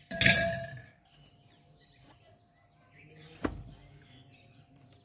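Birds chirping faintly in the background, after a brief loud noisy sound in the first second and one sharp tap about three and a half seconds in.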